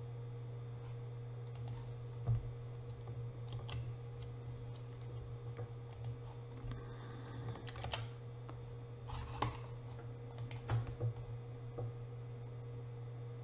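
Scattered, irregular clicks of a computer mouse and keyboard, a dozen or so over the stretch, over a steady low electrical hum.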